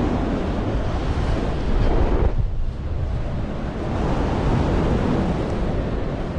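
Airflow of a paraglider in flight rushing over the camera microphone: loud, gusting wind noise, heaviest in the low rumble, easing briefly a little over two seconds in.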